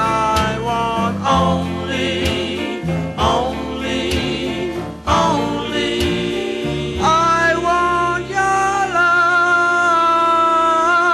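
Reggae song with a lead singer over a bass line; from about seven seconds in the voice holds long, slightly wavering notes.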